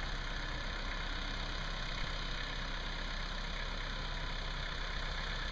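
Engine of a demolition machine running steadily at idle, with one faint knock about two seconds in.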